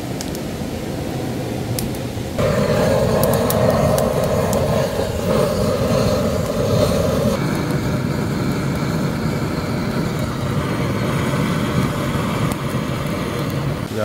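Handheld gas torch roaring as it lights firewood in a steel fire pit, a steady rushing roar that grows louder about two seconds in and eases back after about seven seconds. A few sharp crackles come early on.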